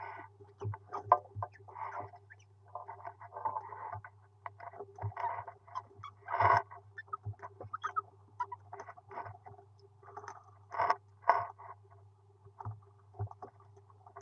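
Rosella nestlings calling in many short, irregular bursts inside a wooden nest box, with scattered knocks and scratches, over a steady low electrical hum.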